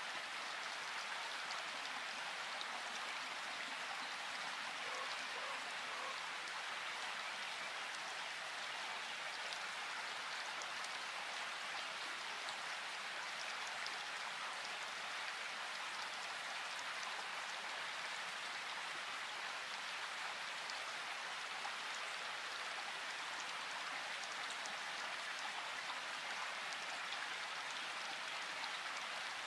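Steady, even hiss like falling rain, with faint small ticks.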